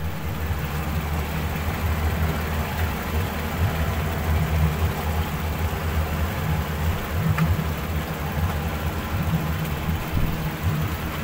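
Yamaha 250 hp V6 four-stroke outboard running steadily at idle with its cowling off, just after a routine monthly service.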